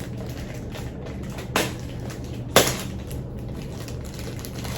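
Two short knocks about a second apart, the second the louder, as things are handled on a table, over a low steady room hum.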